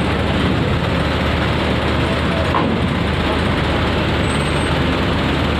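Diesel engine of a light box truck running as it creeps up onto a ferry's loading ramp, over a steady, dense rumble of heavy vehicles and machinery.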